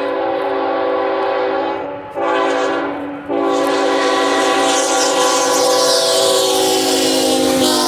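Freight locomotive's multi-chime air horn sounding a long blast, a short one and another long blast. Rumble and rushing of the train build under it, and the chord drops in pitch near the end as the locomotive passes.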